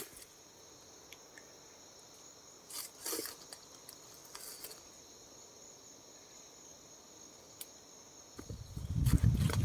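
Steady high-pitched drone of insects in the forest, with a few brief rustles. Near the end, loud low rumbling buffeting sets in, typical of strong wind hitting the microphone.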